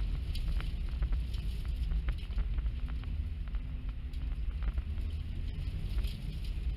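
Steady low rumble inside a car's cabin as it drives through deep powder snow, with scattered light ticks throughout.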